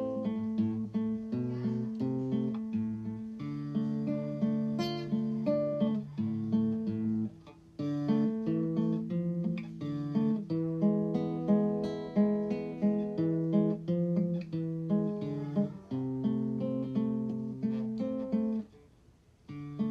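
Background music: an acoustic guitar playing a run of plucked notes, breaking off briefly twice.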